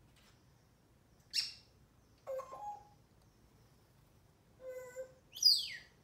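African grey parrot calling in short separate bursts: a sharp high chirp, a short two-note call, a held steady note, and near the end a loud whistle falling steeply in pitch.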